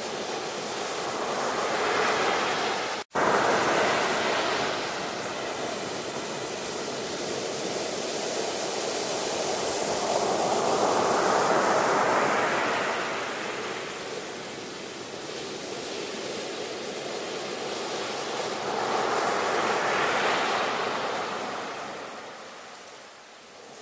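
Ocean waves washing ashore in slow surges, with three swells rising and falling. About three seconds in the sound cuts out for a split second, like an edit splice.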